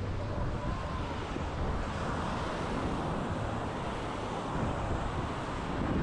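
Caribbean surf washing on the beach, with wind buffeting the microphone as a steady low rumble.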